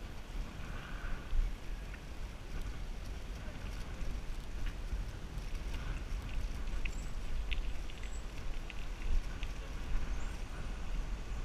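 Wind rumbling on the microphone of a GoPro riding on a moving bicycle, with scattered light clicks and rattles from the bike rolling over a rough country lane.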